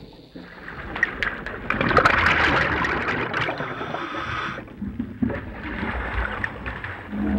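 Water sloshing and gurgling, with scattered clicks and pops. It swells about two seconds in and eases off after about four and a half seconds.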